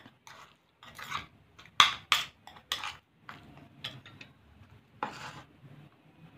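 Metal spoon scraping and clinking against a ceramic bowl as it stirs thick slime, in a series of irregular strokes, the loudest about two seconds in.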